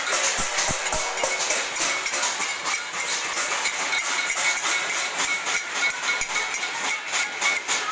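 Many steel plates being beaten with spoons across neighbouring balconies: a dense, continuous metallic clatter, with a steady high ringing note running through it.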